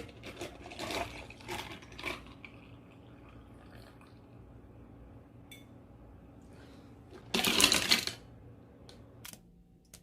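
Kitchen handling sounds: a run of clinks and knocks in the first two seconds, then a brief loud rush of running water about seven seconds in, over a low steady hum that stops near the end.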